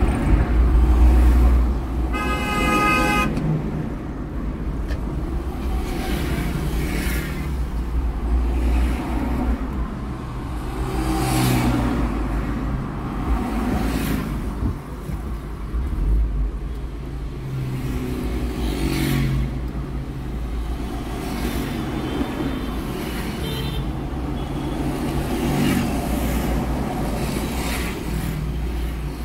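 Street traffic heard from a car driving through city traffic: a steady low road and engine rumble. About two seconds in, a car horn sounds once for about a second.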